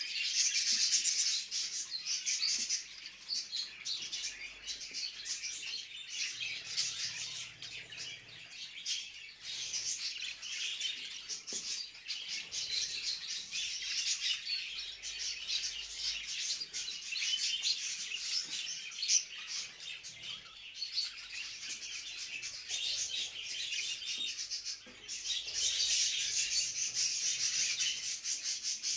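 A group of budgerigars chattering and warbling together in a dense, continuous twitter: the mating-season chatter of budgies in breeding condition. It is loudest in the first couple of seconds and again near the end.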